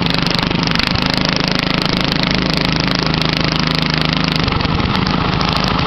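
Riding lawn mower engine running steadily, its note changing about a second in and again a little past four seconds.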